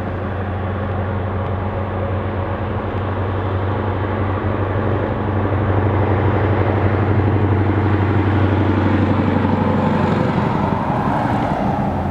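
Scania V8 truck engine passing at a steady speed, a deep, even drone that grows louder as the truck approaches and stays loud through the second half.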